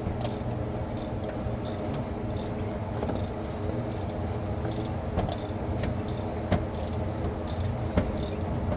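A 3/8-inch ratchet with an oil filter cap wrench being worked in short strokes to unscrew a loosening oil filter housing. It clicks in quick bursts on each return stroke, a burst about every half second or so.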